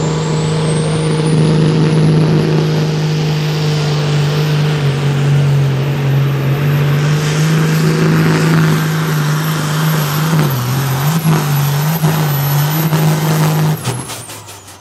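Pro Stock pulling tractor's turbocharged diesel engine running flat out under load, with a high turbo whistle rising over the first few seconds and then holding steady. About a second before the end the engine cuts off abruptly and the whistle falls away as the turbo spins down, the end of the pull.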